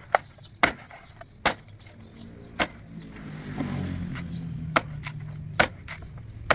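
A large knife chopping into a fresh coconut: sharp separate chops, roughly one a second. A motor vehicle's engine drones close by, swelling about three seconds in.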